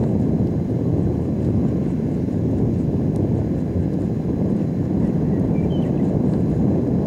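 Single-engine light aircraft's piston engine and propeller running as it rolls along the runway, heard from a distance as a steady low rumble mixed with wind buffeting on the microphone.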